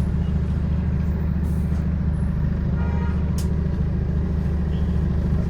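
Bus heard from on board, a steady, loud low drone running under the road noise: the horrible droning sound.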